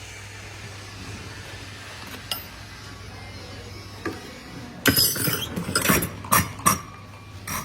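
Diesel fuel-injection pump test bench running with a low steady hum. From about five seconds in comes a quick, irregular run of sharp metallic clinks and clicks.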